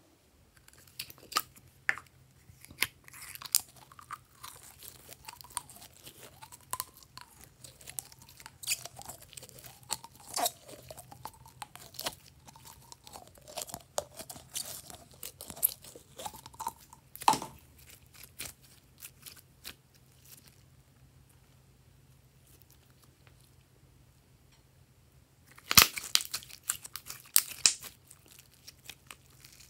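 Glossy slime being squeezed out of a plastic bottle: scattered wet clicks and squelching pops with faint squeaky, wavering tones. After a lull, a dense burst of crackling snaps comes near the end as the slime is stretched apart by hand.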